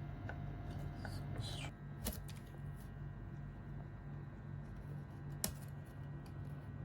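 Meat grinder running with a low hum that pulses evenly about three times a second, with scattered sharp cracks as the crunchy nimko snack is crushed; the loudest cracks come about 2 seconds and 5 and a half seconds in.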